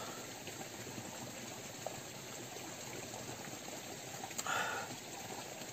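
Steady hiss of rain falling, mixed with the rush of running water from the stream alongside the path. A short rustle about four and a half seconds in.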